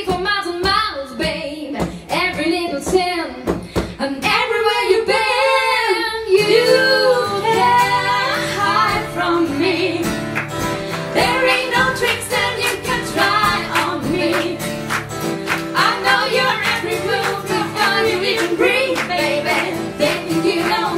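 Live country song: two women singing, one of them strumming an acoustic guitar.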